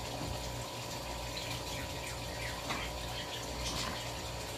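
A steady rushing background noise with a low hum underneath. Over it come faint, short scratches of a grooming brush drawn through a rabbit's long fur, several times.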